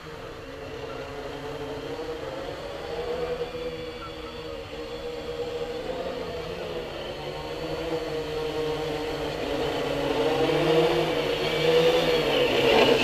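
Electric motors and propellers of an R/C Lunar Module quadcopter, a steady whirring hum whose pitch wavers slightly with throttle changes. It grows steadily louder as the quadcopter flies in close.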